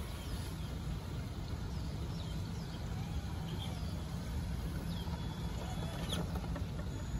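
Traxxas TRX-6 6x6 RC crawler's electric motor and drivetrain running with a low, steady hum as the truck crawls slowly over stone steps. Birds chirp now and then.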